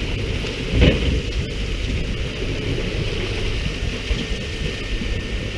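Steady rushing of water spraying and splashing on the sea surface beside a fishing boat, mixed with wind, with a single loud thump about a second in.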